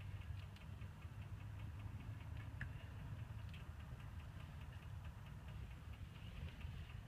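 Overheated car engine idling with a fast, even ticking over a low steady rumble.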